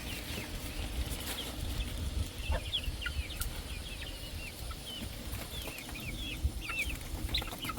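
Poultry birds chirping: many short, high-pitched peeps that overlap throughout, over a low rumble.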